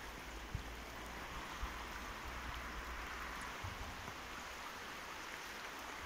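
Fast river current running over a shallow riffle: a steady, even hiss of flowing water.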